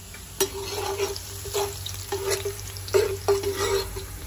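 Chopped onion and garlic sizzling in oil in a large metal pot, stirred with a metal spoon. From about half a second in, the spoon scrapes and knocks against the pot about twice a second, and each knock gives a short ring.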